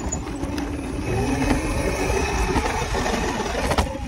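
Small dirt bike's engine running steadily as it is ridden over a dirt track, with wind rumbling on the handlebar-mounted microphone.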